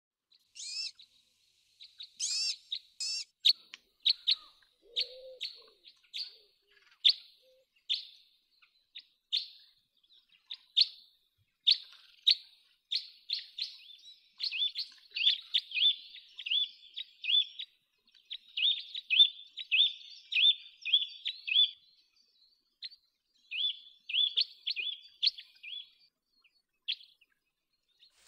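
Juvenile common cuckoo calling: a long run of short, high-pitched calls, spaced out at first and coming in quick series about halfway through.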